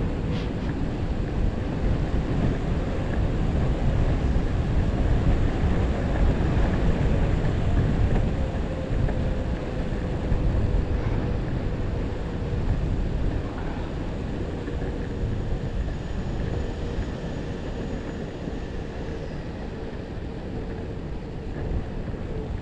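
Heavy wind noise buffeting the microphone on an electric skateboard ride into a headwind, with the board's motor whining steadily underneath at one slightly wavering pitch.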